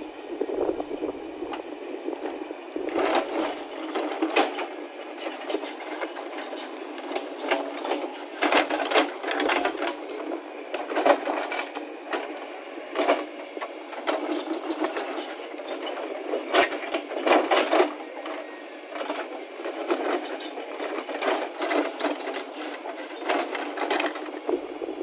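JCB 3DX backhoe loader's diesel engine running under load, with the rear bucket scraping and knocking against broken slabs of road surface in frequent uneven clatters.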